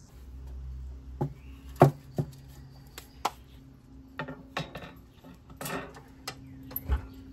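Metal grill grate clanking and clinking as it is set into a ceramic kamado grill, a string of separate knocks with the loudest about two seconds in. Near the end comes a deeper thump as the heavy ceramic dome lid is closed.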